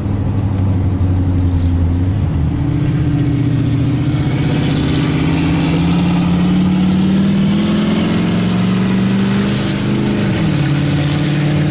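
Vehicle engine pulling at low road speed with a steady drone that climbs slowly in pitch for several seconds, then drops quickly about ten seconds in.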